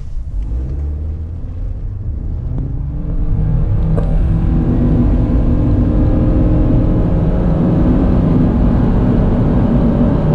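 2020 Suzuki Swift's 1.2-litre four-cylinder petrol engine under full throttle, heard from inside the cabin, accelerating from a standstill. The engine note rises over the first few seconds, then holds steady at high revs, about 6000 rpm, and grows louder while the car keeps gaining speed. There is a single brief click about four seconds in.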